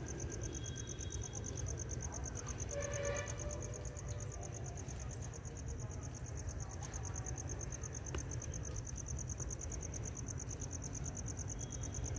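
A steady, high-pitched insect chorus pulsing rapidly and evenly, over a constant low rumble.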